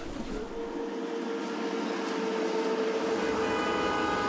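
Steady hiss and rumble of city traffic. A held musical note runs through it, and near the end a higher held chord fades in.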